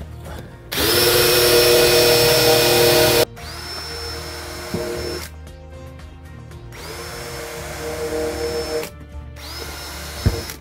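Small cordless drill running in four short bursts, each spinning up quickly to a steady whine, as it drills pilot holes through the cab's upholstery fabric and cardboard. The first burst, about two and a half seconds long, is the longest and loudest.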